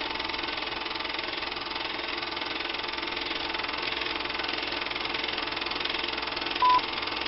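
Film projector sound effect: a steady, fast mechanical clatter under an old-style countdown leader, with one short beep near the end.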